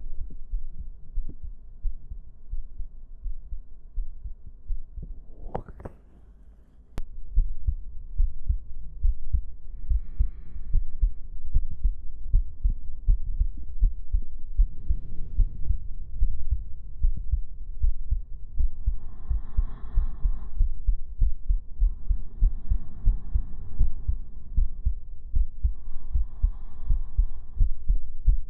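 An amplified human heartbeat: a steady run of low thumps. The sound cuts out briefly about six seconds in and comes back with a sharp click.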